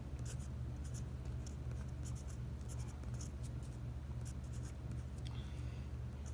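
Parker 51 fountain pen nib writing on paper: a run of short, light scratches with small pauses between the letters, over a steady low hum. The nib is described as very smooth and fairly wet.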